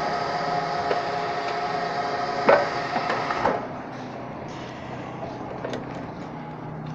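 Petrol pump whining steadily while fuel runs into the motorcycle's tank, then two clunks and the whine stops about three and a half seconds in as the fill ends. After that, a few light clicks as the filler cap is handled.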